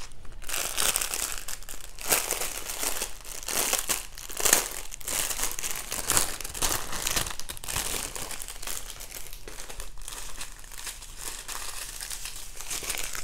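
Crinkly clear plastic packaging, the sleeve holding small bags of diamond-painting drills, being handled and worked open. It crinkles continuously, with louder crackles now and then.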